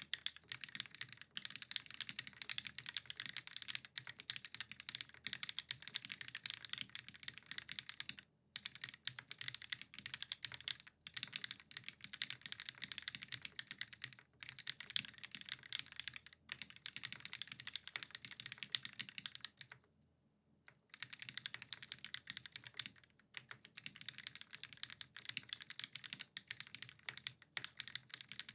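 Steady fast typing on a mechanical keyboard with lubed vintage Cherry MX Black linear switches, GMK keycaps and an aluminium plate in a Sabre case, with a couple of short pauses, the longest about twenty seconds in.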